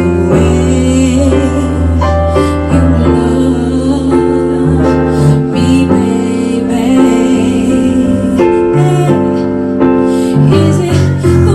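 Live female vocals with electric keyboard accompaniment: a woman sings into a microphone over held keyboard chords, amplified through a PA.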